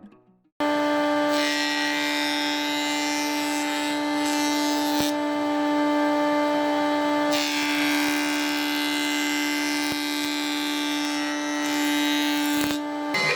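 Electric power tool running with a steady whine, its abrasive working a surface with a rough scraping hiss that swells and eases in passes. It starts abruptly about half a second in and dips briefly near the end.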